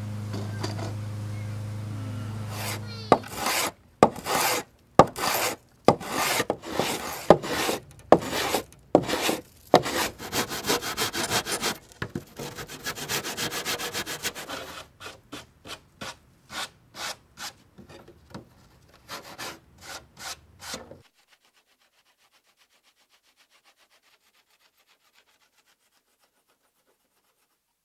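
Repeated hand strokes of a wood-shaping tool scraping along the wooden rail of a hollow wooden surfboard, roughly one to two strokes a second, starting about three seconds in and stopping abruptly about twenty-one seconds in. A low steady hum comes before the strokes.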